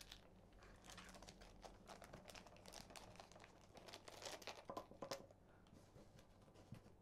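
Faint, irregular crinkling and rustling of plastic packaging being handled, with small scattered ticks.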